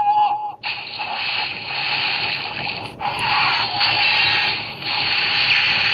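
Wizard Driver toy belt playing an electronic sound effect through its small speaker after a ring is held to it: a short tone, then, about half a second in, a steady hissing, whooshing effect that dips once briefly about halfway.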